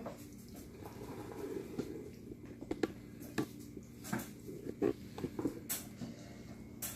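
A utensil patting down and levelling a thick baked-bean mixture in a cast iron skillet: soft wet pats with scattered sharp taps of the utensil against the pan at irregular intervals.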